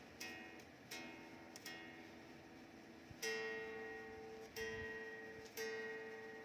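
Electric guitar played through a Zoom G1Xon multi-effects pedal: a slow phrase of about six picked notes or chords, each left to ring out and fade.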